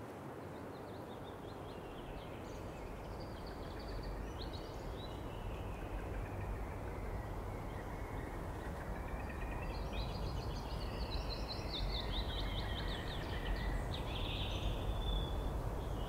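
Outdoor ambience: birds chirping in scattered clusters over a steady rushing noise like wind, which slowly grows louder.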